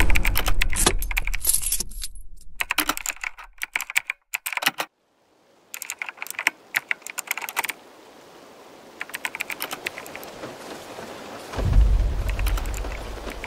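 Keyboard typing sound effect, rapid clicks in short bursts with brief pauses as on-screen text is typed out. About two seconds before the end a low rumble comes in.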